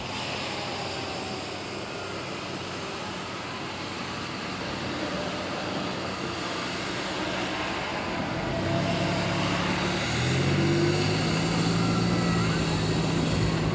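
1994 Toyota 4Runner running with a steady rushing road noise, joined about eight seconds in by a low droning hum that grows louder. This is the noise the owner suspects comes from either a bad wheel bearing or a CV axle.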